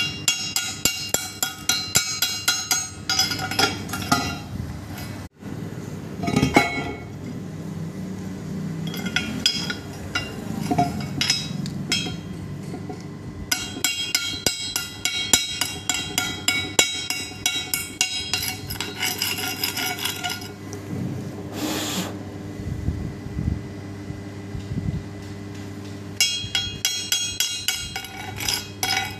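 Chipping hammer striking steel to knock slag off fresh arc-welded seams: runs of quick sharp metallic blows, several a second, each leaving the steel ringing, broken by short pauses. A steady low hum runs underneath.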